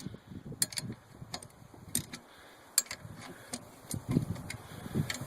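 A wrench working the 7/16 nuts on a riding mower's seat safety switch: scattered light metal clicks and clinks at irregular intervals, with some dull handling noise.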